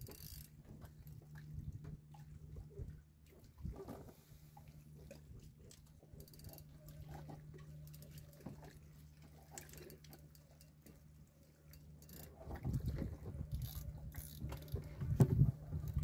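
Quiet ambience aboard a small wooden boat: a low steady hum, faint water sounds and scattered small clicks and knocks, with louder low knocks and rumbling from about three-quarters of the way in.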